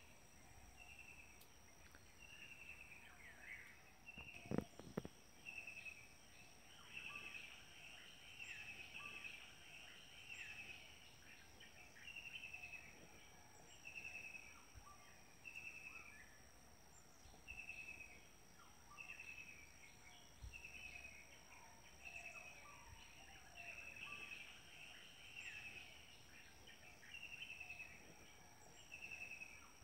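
Quiet background with a short rasping chirp repeating about every second and a bit, over a faint steady high whine. A single knock sounds about four and a half seconds in.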